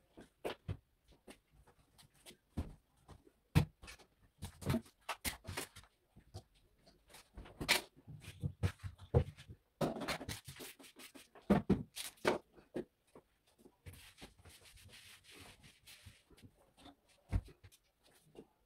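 Household cleaning and tidying sounds: scattered knocks, clicks and rubbing as things on a bed and nightstand are handled and set down, with a faint hiss lasting about two seconds past the middle.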